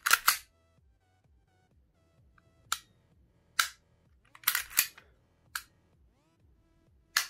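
Airsoft Glock 19 replica's trigger and mechanism being worked by hand: sharp plastic-and-metal clicks and clacks. Two at the start, single ones spread through the middle, a quick cluster of several, and one more near the end.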